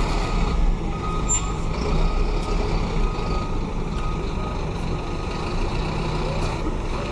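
A motor vehicle engine running steadily with a low rumble, and a few short, faint high tones over it.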